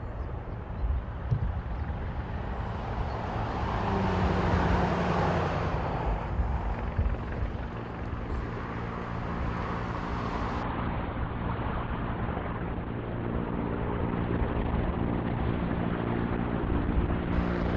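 Engine running with a steady low rumble, joined about four seconds in by a steady droning hum.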